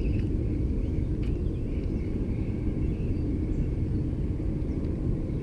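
Steady low rumble of wind buffeting the microphone outdoors, with faint high chirps over it.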